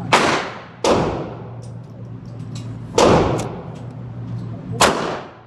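Four pistol shots from a CZ P-10 C, each a sharp crack with a long echo behind it: two in quick succession at the start, then one about 3 seconds in and one near the end. A steady low hum runs underneath.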